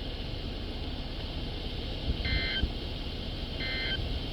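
Two short bursts of EAS end-of-message digital data tones from a NOAA Weather Radio broadcast, about a second and a half apart, starting about two seconds in, over steady radio hiss. The bursts mark the close of the test alert.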